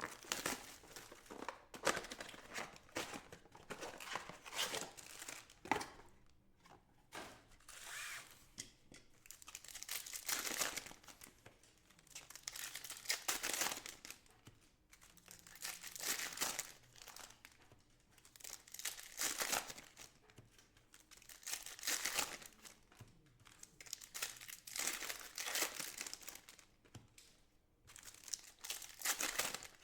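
Trading card pack wrappers being torn open and crinkled by hand, in repeated rustling bursts every two to three seconds.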